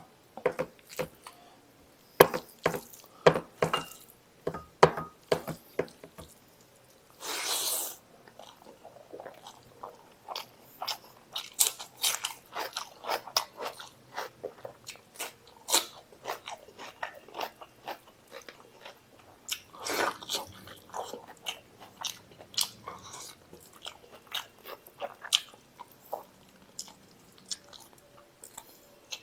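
Close-up chewing of mutton masala and rice, with many wet mouth smacks and clicks in an irregular rhythm. About seven seconds in there is a rushing sound lasting about a second.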